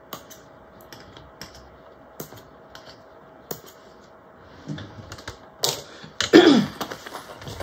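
Scattered light clicks and rustles of hands handling a waterproof canvas bag and pulling its thread tails free at an industrial sewing machine, with a louder burst of handling noise about six seconds in.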